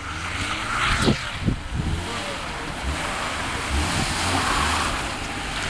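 Mazda MX-5 roadster's engine revving under hard throttle as the car slides sideways around a marker tyre on concrete, with tyre noise from the slide swelling about a second in and again near the end.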